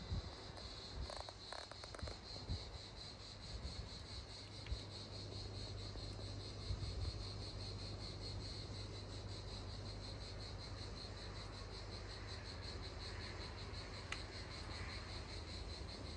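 Crickets trilling steadily in a fast, pulsing chirr, over a low steady hum, with a few faint clicks in the first two seconds.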